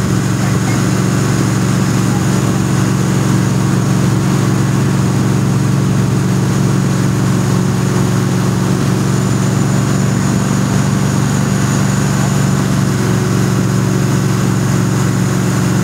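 Towing boat's engine running steadily at skiing speed, a constant low hum, under the rush of the churning wake and spray behind the boat.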